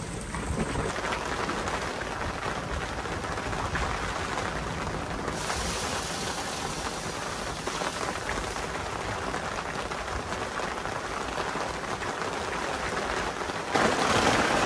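Steady heavy rain from a thunderstorm, heard from under a fabric camper awning. It steps up louder about a second before the end.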